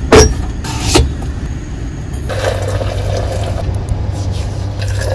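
Stainless steel Stanley coffee press being handled: two metallic clinks with a short ring in the first second, then a steady rushing hiss while it is worked, over a low steady hum.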